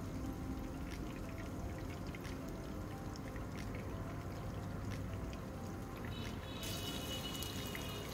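Fish steaks shallow-frying in hot mustard oil in a nonstick pan: a steady sizzle with small crackles, under soft background music.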